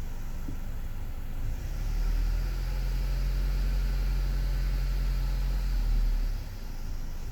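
A car engine running, with a louder, steady low drone that sets in about two seconds in and drops back about six seconds in. This is the noise the owner can't place, asking whether it is a turbo boost leak or an exhaust leak.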